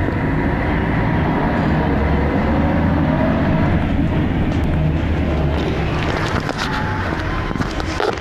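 Scania K113CRB bus's 11-litre straight-six diesel engine running under way, heard from inside the saloon, with a whine that rises in pitch over a couple of seconds. Clicks and rattles of the bus interior come through in the second half.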